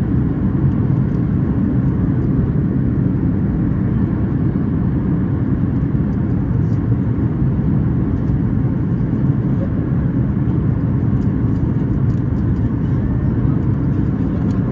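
Steady low rumble of cabin noise inside a Boeing 737 MAX 8 airliner, the airflow and engine noise heard from a passenger seat.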